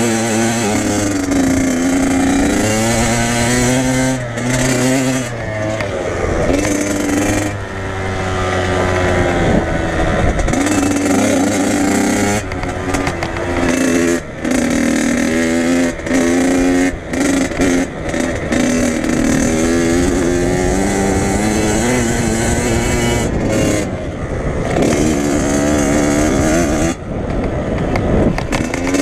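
Dirt bike engine heard from on board while riding a motocross track, revving up and down in pitch as the rider accelerates and backs off. The throttle is chopped briefly several times in the middle stretch and once sharply near the end.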